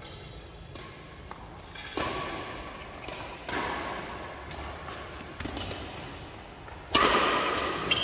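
Badminton rackets striking a shuttlecock in a fast doubles rally: about six sharp cracks, one every second or so, each ringing briefly in the hall. The hardest hit comes near the end.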